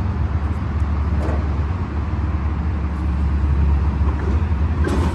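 A 2004 Toyota Tacoma's engine sounds as a steady low drone, with a couple of brief sharper noises near the end; the owner blames a bad ignition coil for the truck's failure to start properly.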